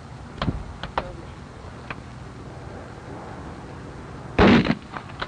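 A scoped rifle fired once at the range, a single loud sharp report about four and a half seconds in. A few fainter clicks and knocks come before it.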